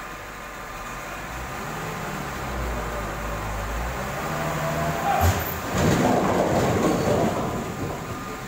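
A timber lorry's load of logs being pushed off: a low rumble builds as the load shifts, a sharp knock about five seconds in, then the logs tumble and crash down together for about two seconds before fading.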